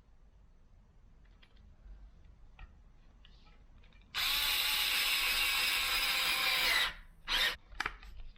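Electric drill runs at speed for nearly three seconds, its whine dropping in pitch as the trigger is released, then gives two short blips of the trigger near the end. Before that, about four seconds of faint small handling clicks.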